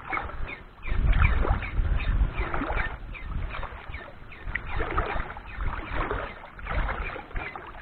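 Wind rumbling on the microphone, with water lapping and sloshing.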